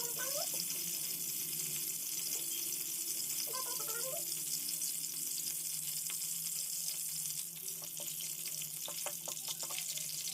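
Food sizzling in hot oil in a cooking pan, a steady hiss with sharper crackles and ticks from about two-thirds of the way in. Two short chirps sound, one near the start and one about four seconds in.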